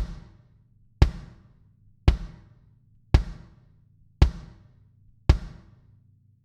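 24x14-inch Gretsch Catalina Club bass drum struck alone six times, about once a second. Each hit is a short, punchy thump that dies away quickly: the drum has stock heads tuned low, an impact patch, and a pillow and two blankets inside for muffling, and is picked up by a mic at the front-head porthole.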